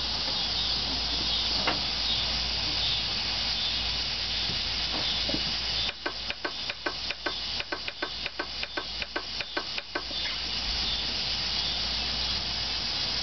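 Main relay on a 1990 Nissan pickup clicking rapidly, about four clicks a second for some four seconds midway, over a steady hiss. The engine does not crank: the truck won't start and just clicks.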